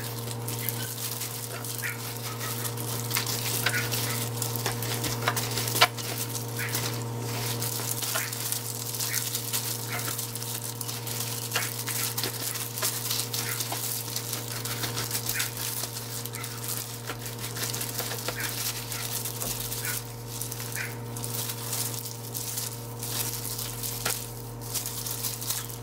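Wet, sticky squelching and crackling of plastic-gloved hands rubbing red pepper kimchi paste into salted napa cabbage leaves and folding them, with plastic rustling. A steady low hum runs underneath, and one sharp click sounds about six seconds in.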